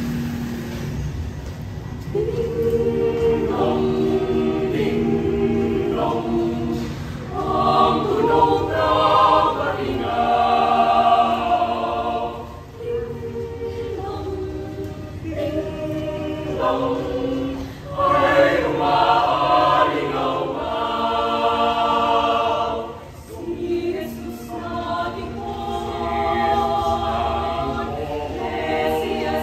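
A choir singing a Christmas carol in several voice parts, coming in about two seconds in, its phrases swelling and dropping back.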